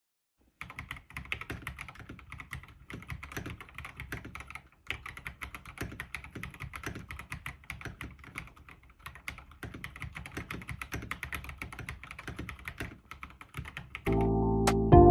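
Typing on an Akko PC75B Plus Air mechanical keyboard: a quick, uneven stream of key clicks with a short pause partway through. The typing stops near the end and music comes in.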